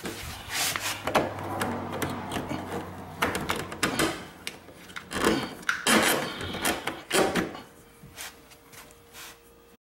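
Handling noise from plastic dishwasher hoses being pulled and moved against the machine's plastic frame: irregular knocks, clicks and rustling. It thins out towards the end and then cuts off abruptly.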